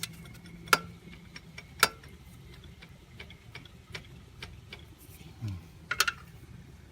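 Scattered metallic ticks and clicks of a wrench and tools working on the ATV's chain adjuster bolts, with three sharper clicks, the last one near the end. A brief low falling sound comes in just before that last click.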